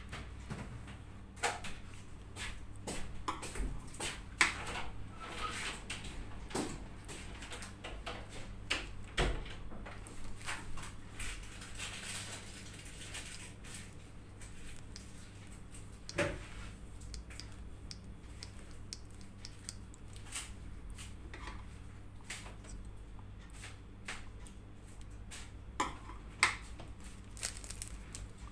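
Scattered light clicks and taps of metal cake-decorating tools being handled (scissors and a flower nail) over a steady low hum.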